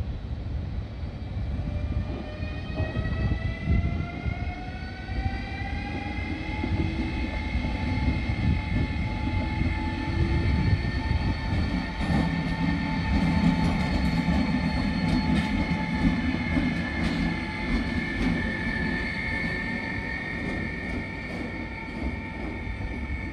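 Siemens Class 189 electric locomotive running light, its traction converter and motor whine rising in pitch over the first several seconds as it picks up speed and then holding steady. Short wheel clicks over the track come in the second half.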